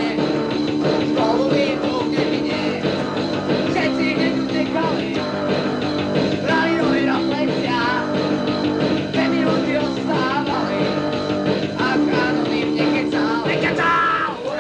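Lo-fi punk rock song recorded on a dictaphone, with a voice singing over a band.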